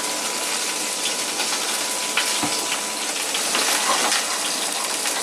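Fennel bulbs sizzling in oil in a frying pan: a steady hiss with a few faint clicks.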